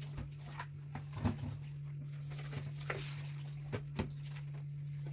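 Vegetables being rinsed under a running kitchen tap: scattered light splashes and knocks of produce against plastic bowls and a metal sink, over a steady low hum.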